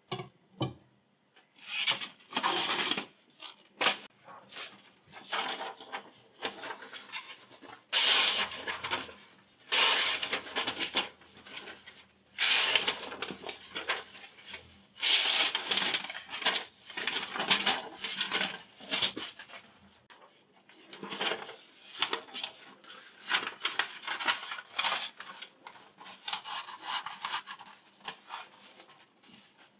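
Paper rustling and sliding against a sharp chef's knife blade as sheets are sliced and handled, in irregular bursts with short pauses between them.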